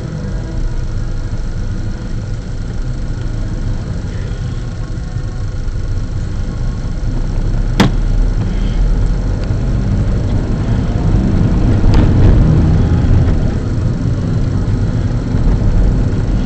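Car engine and road noise heard from inside the cabin, a steady low rumble that grows louder as the car gathers speed along the street. A single sharp click or knock sounds about eight seconds in, and a fainter one a few seconds later.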